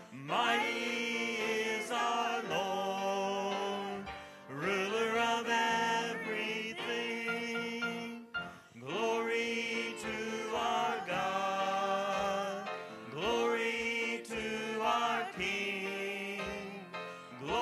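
Worship music: sung phrases about every four seconds, each opening on a rising note, over sustained accompaniment.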